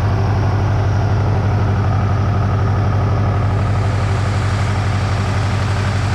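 Engine idling steadily with a fast, even pulsing knock, a rod knock that sounds unhealthy, the sign of a worn connecting-rod bearing.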